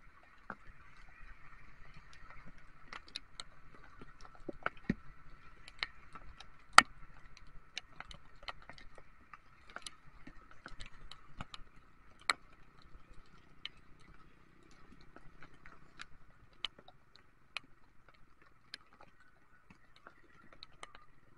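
Raindrops ticking irregularly against the motorcycle's camera and windscreen, a few sharper hits standing out, over a steady high hum and a faint low rumble from the ride.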